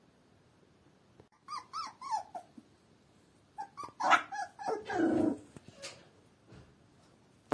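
Young puppy crying: a few short high whimpers about a second and a half in, then a louder run of whines and yelps around four to five seconds in.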